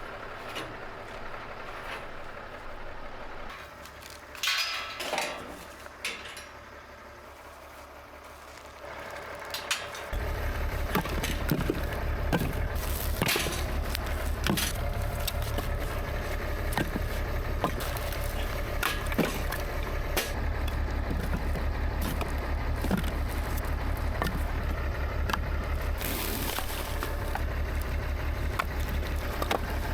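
A few wooden knocks and clatters. From about ten seconds in, a tractor's diesel engine runs steadily, with occasional clunks over it.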